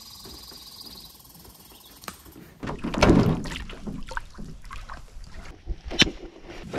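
After a quieter start, water splashing and sloshing around a canoe as it is launched from the shore in shallow water. About six seconds in there is a single sharp slap of two hands meeting in a high-five.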